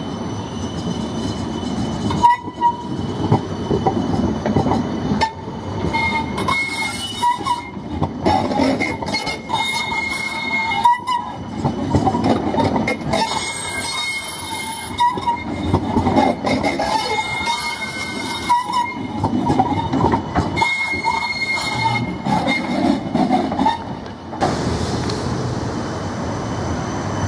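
A nine-section CAF Urbos low-floor tram running past on street track: a dense rumble of wheels on rail with wavering high-pitched tones coming and going. Near the end the sound turns to a steadier rush.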